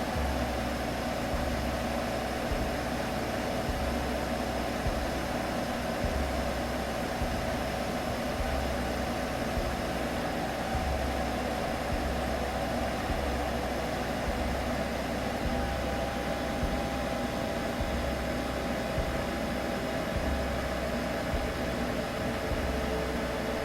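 Steady, unbroken soothing hum blended with a white-noise hiss, made as a baby-sleep sound; its pitch shifts slightly about two-thirds of the way through.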